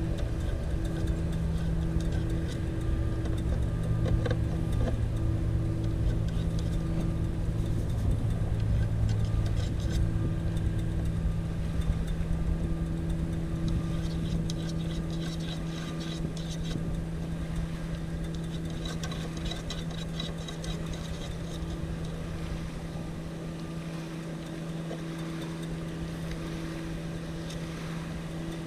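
An engine running steadily with a constant low hum; its deeper rumble fades away after about twelve seconds while the hum carries on.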